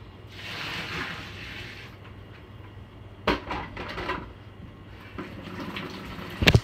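Household handling noises: a brief rush of noise about half a second in, then a few knocks and clatters, the loudest a sharp knock near the end.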